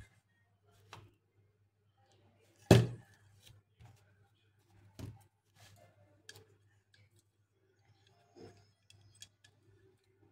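Small clicks and taps of metal hard-drive parts being handled by hand around the head actuator and its magnet, with one sharp, loud click a little under three seconds in.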